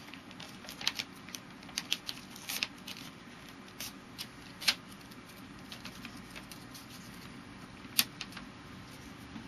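A sheet of paper being folded and creased by hand into a paper airplane: irregular short crackles and rustles, the sharpest about halfway through and near the end.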